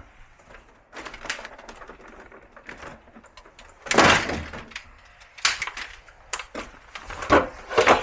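Clicks, knocks and clatter of air conditioner parts being handled during disassembly, with a louder clatter about four seconds in.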